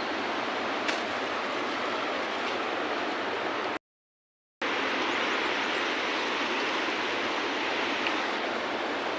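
Steady rush of flowing river water. The sound drops out completely for under a second about four seconds in, then returns unchanged.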